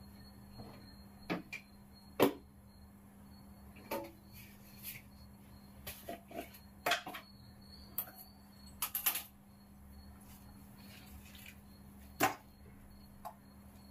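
Scattered light clicks and knocks of kitchen things being handled at a gas stove, the sharpest about two seconds in and another near the end, over a faint steady hum.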